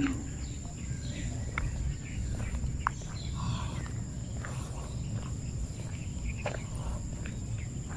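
Outdoor ambience: a steady high-pitched insect drone, with low wind rumble on the microphone and a few faint short chirps.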